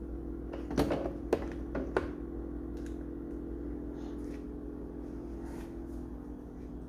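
A few light knocks and clicks of objects being handled in the first two seconds, over a steady electrical hum.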